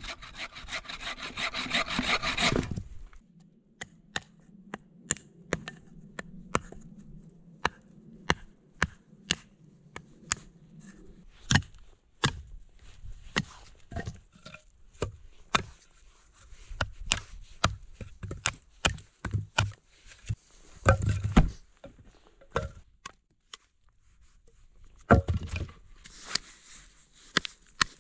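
Hand saw cutting quickly through a pine log for about three seconds. Then many separate wooden knocks and clacks as the cut logs are set down and stacked, with a louder cluster of knocks about three-quarters of the way through.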